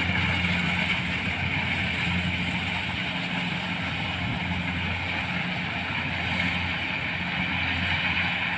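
Kubota combine harvester's diesel engine and machinery running with a steady drone as it cuts and threshes rice.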